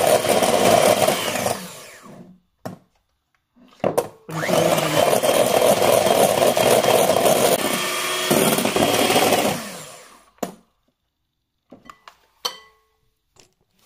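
Electric mixer whisking egg whites toward soft peaks. The mixer runs, stops about two seconds in, then starts again and runs until about ten seconds in, followed by a few light knocks.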